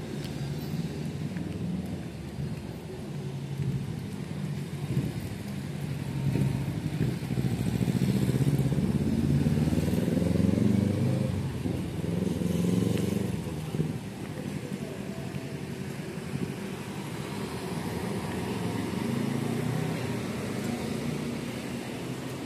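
Road traffic: engines of passing vehicles rumbling by, growing louder toward the middle and easing off afterwards.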